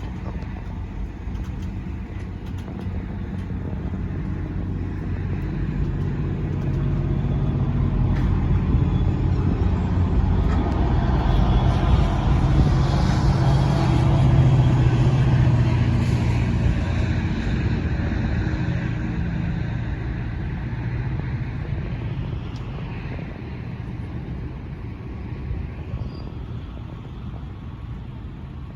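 GO Transit commuter trains passing: a low diesel locomotive drone with the rumble of steel wheels on rails. It builds to a peak about halfway through, then slowly fades away.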